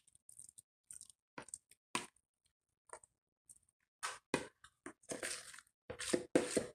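Moist cornbread dressing being pressed and patted down by hand in a baking pan: soft squishy, crackly sounds in short scattered bursts that come thicker near the end.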